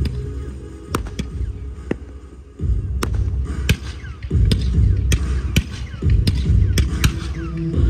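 Fireworks bursting with sharp, irregular bangs over loud, bass-heavy show music. The music thins out about two seconds in, then comes back strongly about halfway through while the bursts keep coming.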